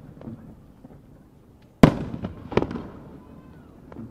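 Aerial fireworks shell bursting with a sharp bang about two seconds in. A second bang and a few smaller cracks follow within a second, then trail away.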